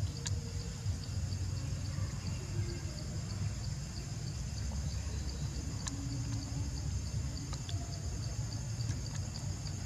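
Steady chorus of forest insects, a continuous high pulsing trill, over a steady low rumble, with a few faint sharp ticks, the clearest about six seconds in.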